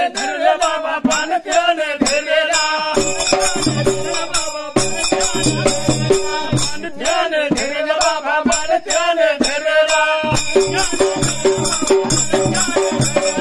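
Dhangari ovi folk song: men's voices singing together over a large steel-shelled dhol and small hand cymbals clashing in a steady, fast rhythm.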